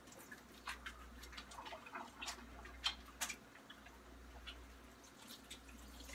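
Faint, irregular small clicks and drips at a kitchen sink as hands are washed, over a low steady hum.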